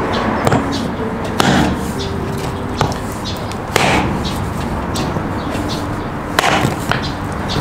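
Hatchet chopping a lamb leg bone and meat on a concrete floor: a string of sharp chops, irregularly spaced, with two in quick succession near the end.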